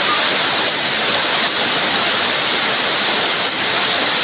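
Heavy rain pouring down on wet, puddled ground: a dense, steady hiss of downpour.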